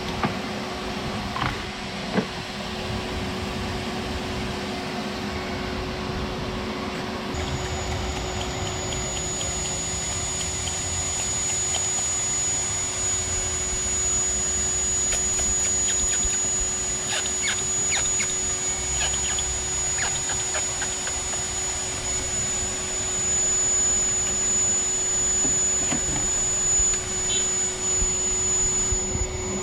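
Shop vac running as a blower to pressurise the car's exhaust system for a leak check: a steady motor drone with a constant hum, and a high whine that joins in about a quarter of the way through. A couple of short knocks near the start.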